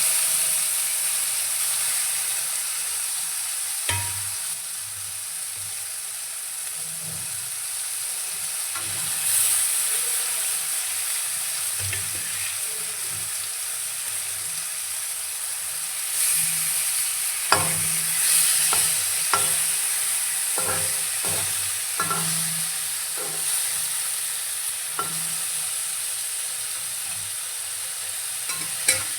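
Food frying in hot oil in a pan: a steady high sizzle, with a utensil knocking and scraping against the pan in a cluster of short strokes from about 17 to 25 seconds in.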